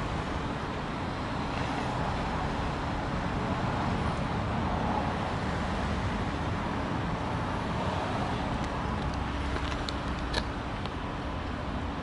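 Steady outdoor background rumble, with a few short clicks near the end.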